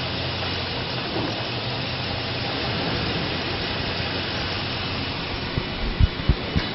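A 2001 Chevrolet Silverado's 5.3-litre V8 running steadily with a hissing, even noise, and a few low thumps near the end.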